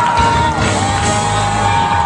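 Live gospel choir and band music: a long held note that steps down about half a second in, with whoops from the crowd.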